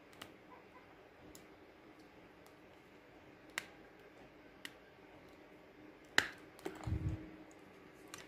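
Scattered small plastic clicks and taps as the battery is pried out of a BlackBerry phone, the loudest click about six seconds in, followed by a few soft low knocks.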